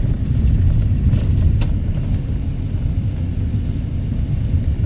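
Car driving, heard from inside the cabin: a steady low rumble of engine and tyres on the road, with a few faint clicks and rattles.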